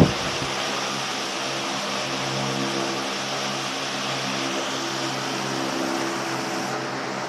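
Loren-Sid Tufão 60 cm wall fan running steadily: an even rush of air from the blades with a low motor hum underneath.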